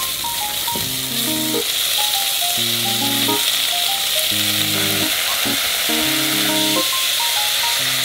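Sliced onion and thin slices of meat sizzling steadily as they fry in a saucepan, stirred now and then.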